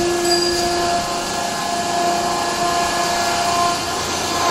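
Electric wood sawdust making machine running: a steady mechanical whirr with several held tones over a dense noisy rush. The lowest tone fades about a second in.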